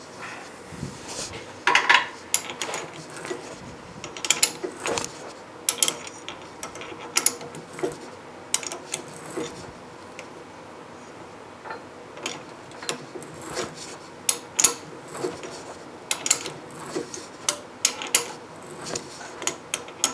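Irregular sharp metallic clicks and clunks of hand work at a metal lathe while a brass fitting is drilled and tapped for 3/8 in pipe thread.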